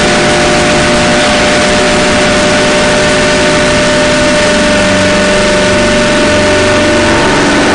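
Harsh noise drone music: a loud, unbroken wall of distorted noise with steady held tones through it, and a slow wavering low drone coming in about halfway.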